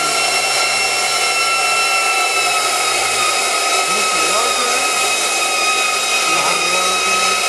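Steady machine noise with a constant high whine made of several steady tones, unchanging throughout.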